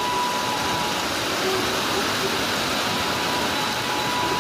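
Steady hiss of rain on a wet railway platform, with a constant thin high-pitched tone running through it.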